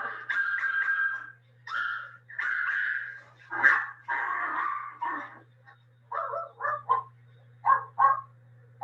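Dog howling in long, high held notes, breaking into a run of short yelps in the last few seconds.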